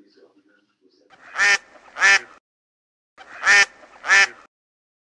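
Duck quacking in pairs: two double quacks, the pairs about two seconds apart.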